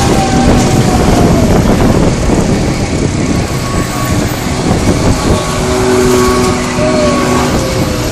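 Swinging-chair fairground ride in motion: a steady mechanical rumble with rushing noise, and a faint whine that slides down in pitch at the start and again near the end.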